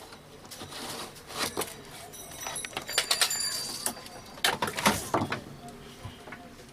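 Scattered clicks and knocks of hands handling a CRT television's circuit board and cables, with a few faint high chirps about halfway through.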